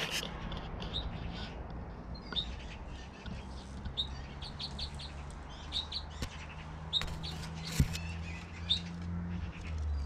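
Songbirds in an aviary chirping and singing in short, scattered phrases over a low steady hum, with one sharp click about eight seconds in.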